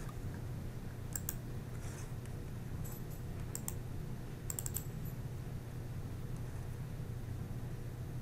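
Clicks of a computer mouse and keyboard, coming in small clusters through the first five seconds and then sparse, over a low steady hum.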